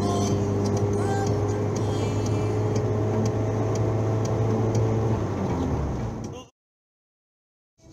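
Car driving at speed, heard from inside the cabin: a steady engine drone with low hum tones over tyre and road noise. It fades out about six seconds in and cuts to silence.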